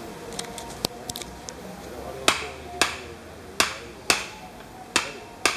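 Sharp strikes of a hand tool on the timber of a wooden boat. They begin about two seconds in and come roughly every half second to second, six in all, loosely in pairs.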